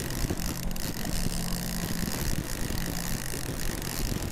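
Fishing boat's outboard motor running steadily, a low even hum, over a constant hiss of wind and water.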